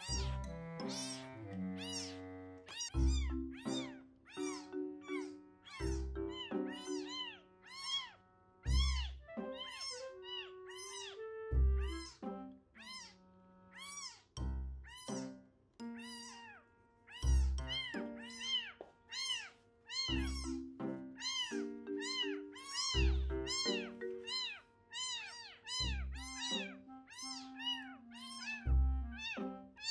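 Newborn kitten mewing over and over in short, high, rising-and-falling cries, about two a second, over soft background music with a slow, deep beat.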